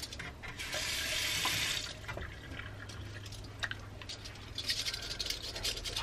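Bathroom tap running briefly about a second in, then a toothbrush scrubbing teeth in quick, rapid strokes near the end.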